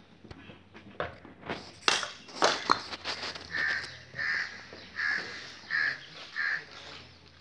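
A crow cawing five times in an even run, about one caw every 0.7 seconds, after a few loud sharp noises a second or two in.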